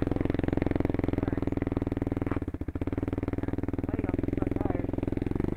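ATV (four-wheeler) engine running steadily while riding, with a brief drop in level about two and a half seconds in.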